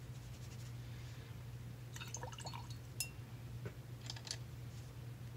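Faint wet dabs and a few small clicks of a watercolour brush, daubing paper and picking up paint from the half pans, over a steady low hum.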